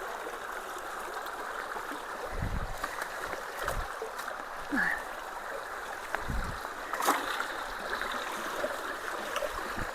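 Steady rush of creek water flowing through a road culvert, with a few dull low thumps about two and a half, four and six seconds in.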